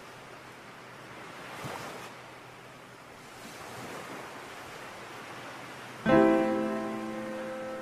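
Small waves washing onto a sandy beach, swelling gently twice. About six seconds in a piano chord is struck and rings on, louder than the surf.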